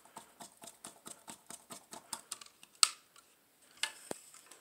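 Screwdriver tightening a CPU cooler's mounting screws on a motherboard: a quick run of small clicks, about five a second, then a sharper click a little under three seconds in and a few scattered knocks.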